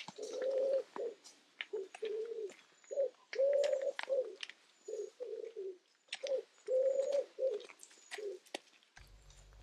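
A pigeon cooing over and over in phrases of low coos, while small birds chirp faintly and high in the background.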